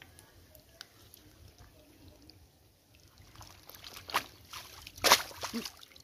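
A fishing net being swept through shallow muddy water and lifted out. Quiet at first, then sloshing and splashing build from about three seconds in, with the loudest splash near the end as water pours off the net.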